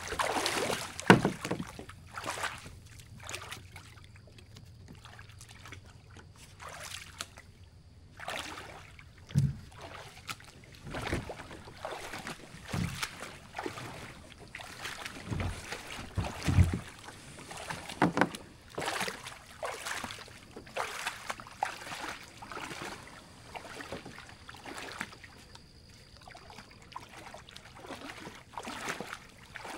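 Boots splashing through a shallow creek as a person wades, towing a kayak, with water sloshing around the hull. The splashes come in irregular steps, with a quieter stretch a few seconds in.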